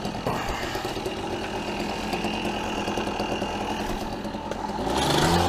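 Go-ped GSR25 scooter's small two-stroke engine running under way, getting clearly louder near the end.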